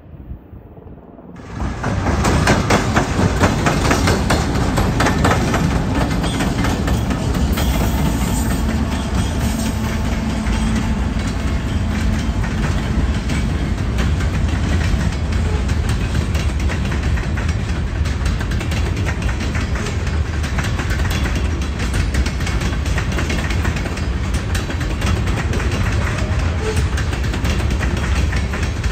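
Freight train rolling past close by, its diesel locomotives and then freight cars going by with a steady, loud rumble and wheels clattering over the rails. It cuts in suddenly about a second and a half in, after a quiet start.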